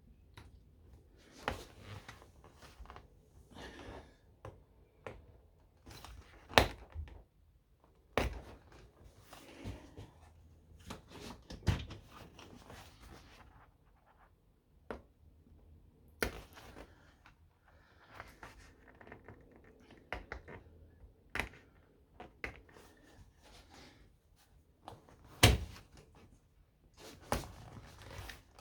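Scattered knocks, clunks and clicks with rustling between them: hands working on a car seat and its headrest and trim. There are a dozen or more sharp knocks at uneven intervals, the loudest about a quarter of the way in and again near the end.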